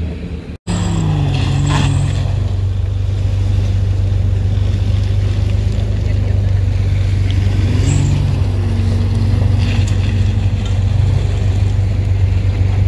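Off-road SUV's engine running hard under load as it climbs a steep dirt slope, a steady low drone whose pitch falls and rises as the throttle is worked, about a second in and again near eight seconds.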